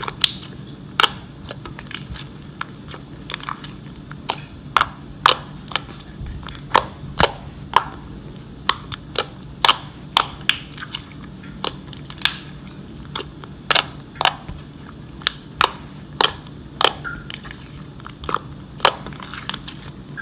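Homemade glue slime squished and kneaded by hand, giving irregular sharp pops and clicks from air pockets, about two a second.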